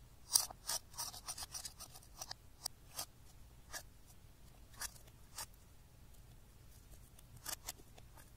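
A thin metal pick scraping and digging into pressed pink makeup powder in a compact: a quick run of short scratchy strokes in the first two seconds, then single scratches about a second apart, and two more near the end.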